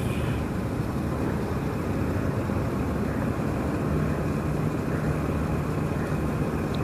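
An engine running steadily with a low hum, under a constant rushing noise.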